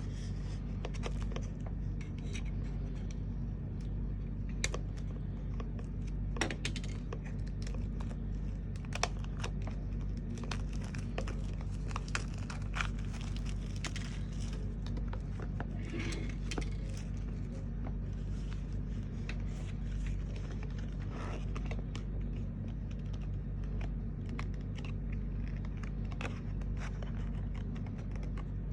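Packaging being opened and handled: irregular tearing, crinkling and scraping of cardboard and wrapping, with scattered sharp clicks, over a steady low hum.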